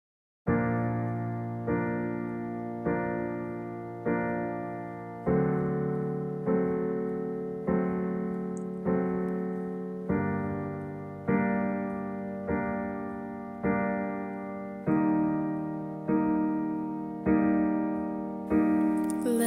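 Piano chords played as a song's introduction, one chord struck about every 1.2 seconds and left to fade, the harmony changing every few strikes.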